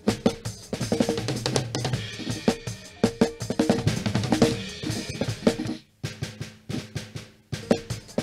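Recorded drum kit playing back, the acoustic snare layered with EZdrummer snare samples triggered from MIDI to thicken a dull snare sound. A steady run of drum hits with kick and snare, breaking off briefly twice in the second half.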